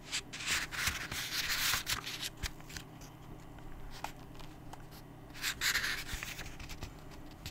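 Pages of a paperback book being handled and turned: a scratchy paper rustle in the first two seconds and a shorter one a little past halfway, with a few light ticks in between.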